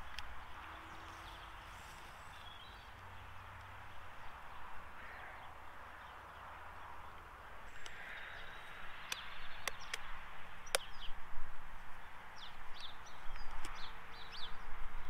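Outdoor ambience with a steady faint hiss, a few sharp clicks about nine to eleven seconds in as the pinhole camera and its parts are handled on the tripod, and short bird chirps near the end.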